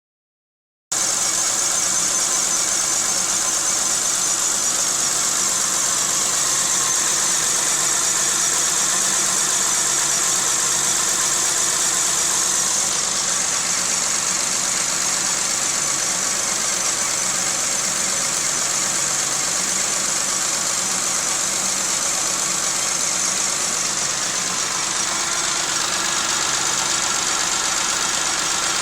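1995 Geo Metro's 1.0-litre three-cylinder engine idling roughly and steadily, the car shaking with it. The rough idle comes from a dead cylinder: number 2 had no compression because of stuck lifters.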